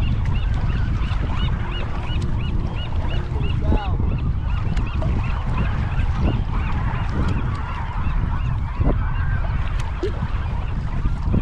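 A flock of waterfowl calling: many overlapping goose-like honks, with a quick run of short, high calls in the first few seconds. A steady low rumble sits underneath.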